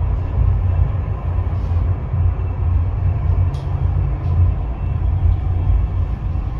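Steady low rumble inside a cabin of the Stoosbahn funicular as it runs along its steep track, with one brief click about three and a half seconds in.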